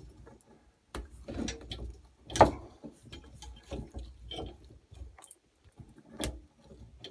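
Scattered clicks, knocks and rubbing from handling the hose quick-connect of an old Moen pull-down kitchen faucet under the sink while its release tabs are pushed in to free the hose. The loudest knock comes about two and a half seconds in, and another sharp one near the end.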